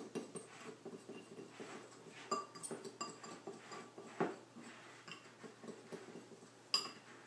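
A spoon stirring a dry cinnamon-and-sugar mix in a small bowl: quiet repeated scraping with a few sharper clinks against the bowl.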